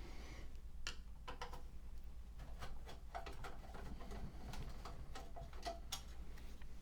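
Light, irregular clicks and taps as small parts and wire connectors of a computer case are handled.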